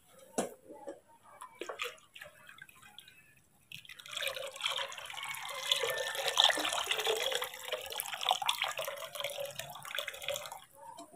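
Warm water poured from a metal kettle into a plastic basin: a steady splashing stream that starts about four seconds in and stops shortly before the end. A few soft knocks come before the pour.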